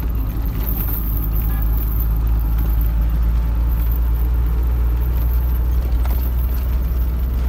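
Loaded goods truck's diesel engine droning steadily from inside the cab as it drives along, getting louder just at the start and then holding even.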